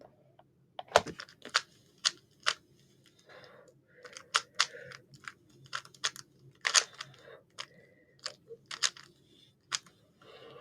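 Rubik's cube being turned by hand: sharp plastic clicks and short scraping turns of the layers, coming irregularly, sometimes in quick runs of several turns.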